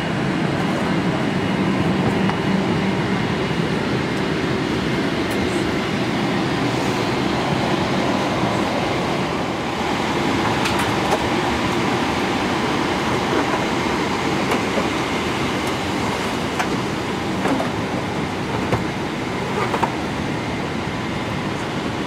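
Steady rushing noise of the Boeing 777-300ER's cabin air conditioning, with a few light clicks and knocks from about ten seconds in.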